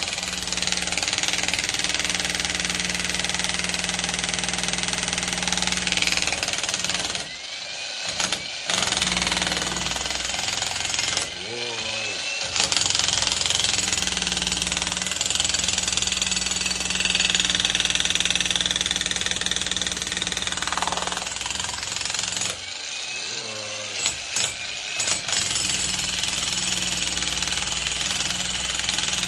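Heavy-duty jackhammer hammering continuously while breaking up masonry. It stops briefly three times, at about seven, eleven and twenty-three seconds, before starting again.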